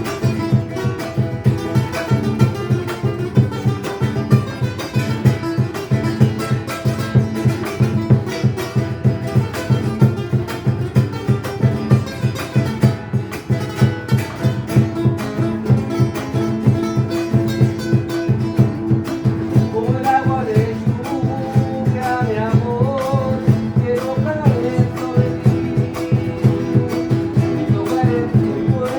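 Guitar playing a steady rhythmic accompaniment, and a voice starts singing over it about twenty seconds in.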